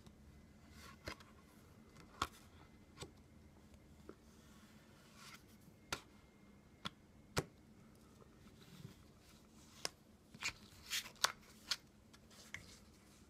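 Playing cards being handled, giving scattered sharp clicks and taps, with a quicker run of them near the end.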